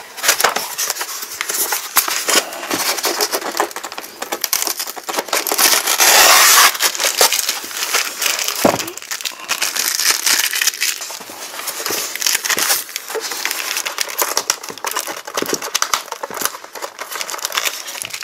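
Clear plastic wrapping crinkling and rustling as a white foam packing case is handled and pulled open, with a louder burst of crinkling about six seconds in.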